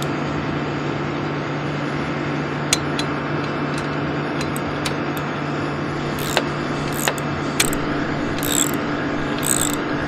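Socket ratchet wrench tightening camera-mount bolts: scattered clicks, then several short ratcheting strokes in the second half, over the steady hum of a running engine.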